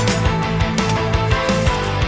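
Loud background music with a driving drum beat over held notes.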